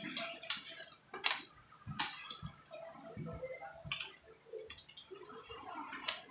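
Metal spoons and forks clinking against plates: a few sharp separate clicks at irregular intervals.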